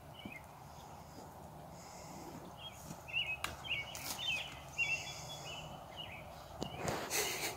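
Small birds chirping in short, repeated calls over a faint, steady outdoor background hiss. Near the end, a short breathy rush of noise.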